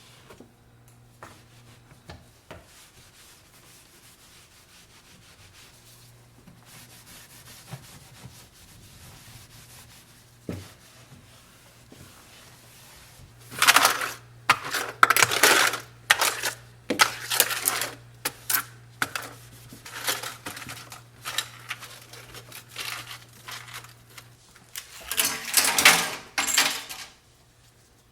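A few light knocks and handling sounds over a low steady hum. From about halfway in, a run of scrubbing strokes on a hard surface begins, growing loudest again near the end, as a refrigerator is cleaned.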